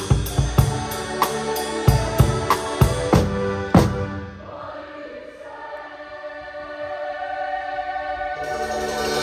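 Show choir with live band: the drum kit plays a groove with steady cymbal ticks, ending on an accented hit about four seconds in. The drums then drop out and the choir holds a sustained chord that swells, and cymbals come in near the end.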